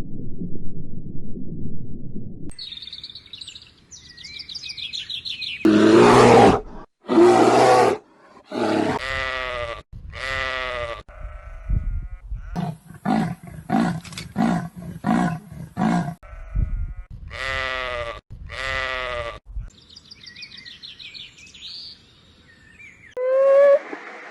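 A series of different animal calls cut one after another: a low rough rumble at first, then high squeaky calls, two loud harsh calls, and a run of pitched, wavering cries and quick pulsed calls, with high chirps near the end.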